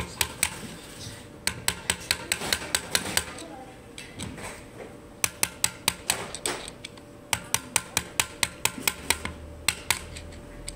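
Rapid metallic clicking in short runs of about six or seven clicks a second, from a long screwdriver working at the axle of an e-bike rear hub motor.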